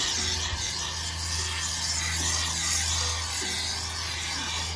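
Expanding foam sealant hissing steadily out of an aerosol can through its thin applicator straw as it is sprayed into a rust hole.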